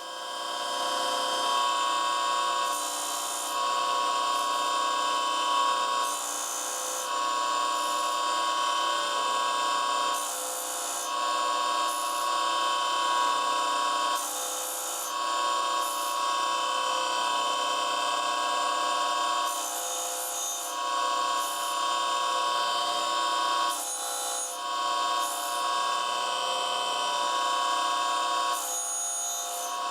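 Surface grinder's abrasive wheel spinning with a steady high whine, broken every few seconds by short bursts of hissing, grinding noise as the table carries the forging tool under the wheel. The grinder is taking 25-micron cuts.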